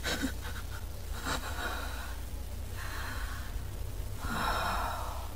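A person breathing heavily: three audible breaths about a second and a half apart, the last the loudest, over a steady low hum.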